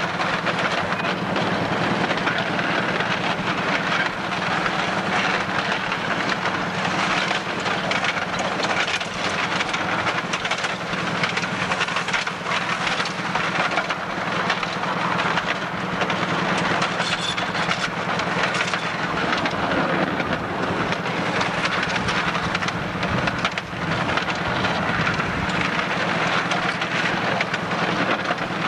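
10¼-inch gauge miniature railway locomotive and train running steadily along the track, heard from on board: a continuous running noise with a steady low hum and a fast clatter of wheels on rail joints.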